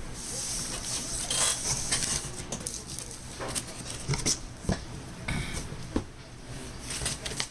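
Cardboard box flaps and a packing-foam sheet being handled and pulled open: irregular rustling and scraping with soft knocks.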